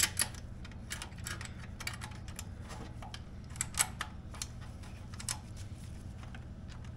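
Light metallic clicks and taps as the loosened exhaust mid pipe and muffler joint are wiggled and shifted by hand to line them up, over a steady low hum.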